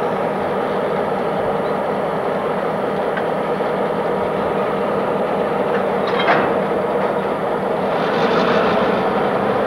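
Conrail diesel locomotives running at slow speed, with a steady engine drone and a brief high squeal of wheels about six seconds in.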